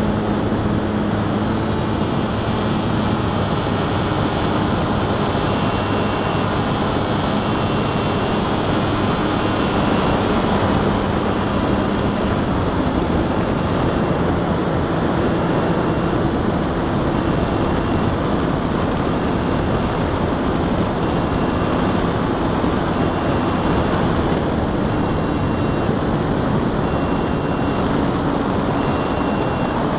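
Model aircraft's motor and propeller running steadily in flight, with rushing wind noise and a low hum that wavers slightly in pitch. From about five seconds in, a short high beep sounds about every two seconds.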